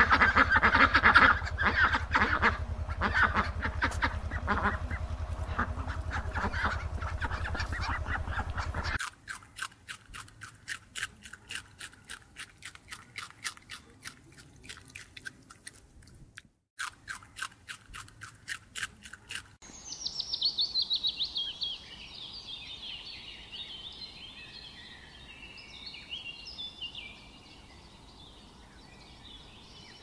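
Mandarin duck calling over a low hum. Then rabbits chewing leafy greens: a quieter, even run of crisp crunching clicks. Near the end, a run of high chirps that start high and drift lower.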